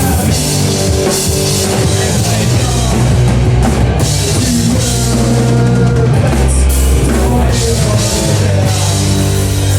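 Live rock band playing an instrumental passage: distorted guitars, bass and a full drum kit with cymbals, loud and continuous.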